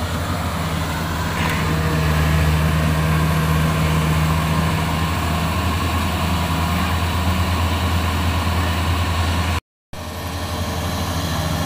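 Kubota DC-70 combine harvester running steadily, its diesel engine giving a constant low drone under a haze of machine noise. The sound cuts out for a moment near the end.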